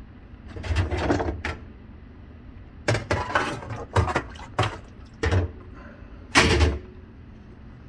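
Handling noises at a dishwasher: a series of clunks and scrapes, six or so in a few seconds, the loudest near the end, over a low steady hum.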